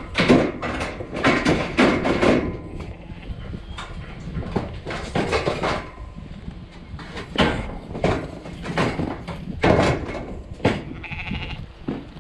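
A flock of yarded ewes and lambs bleating, many calls overlapping and following one another.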